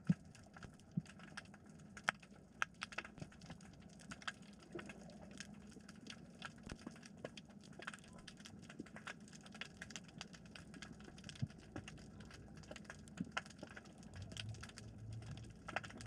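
Underwater ambience: a dense scatter of sharp, irregular clicks and crackles over a faint low hum. A somewhat louder low hum comes in near the end.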